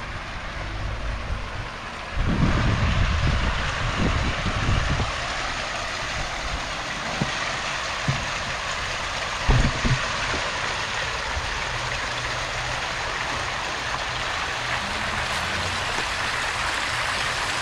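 Steady rush of water over a low, even motor hum, typical of an in-ground pool's filter pump running while the vacuum hose is being primed. Low bumps break in a few times, the longest about two seconds in and a short one near the ten-second mark.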